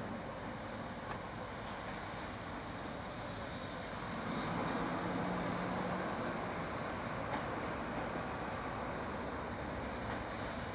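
Class 56 diesel locomotive running as it approaches, a steady engine rumble that grows a little louder about four seconds in.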